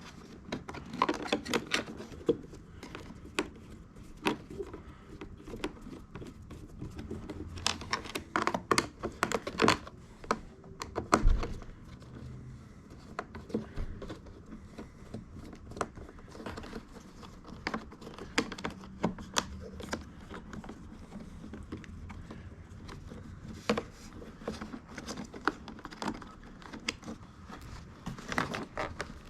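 Irregular clicks, taps and light rattles of hands and tools working on plastic car-door trim and the window switch unit, with a louder knock about eleven seconds in.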